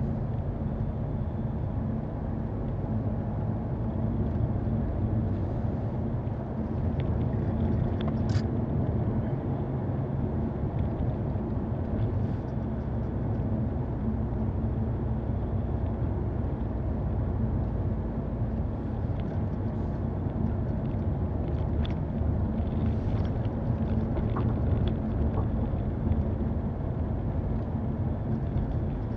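Car engine and tyre noise heard from inside the cabin while driving, a steady low rumble with a hum, and a few light clicks scattered through it.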